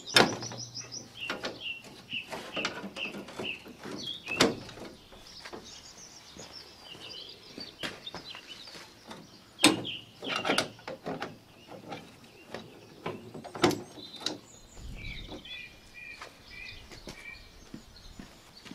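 A songbird chirping in runs of short repeated high notes, about two a second. Several sharp knocks and clicks cut in, the loudest about ten and fourteen seconds in, from the grass collector of a ride-on mower being handled.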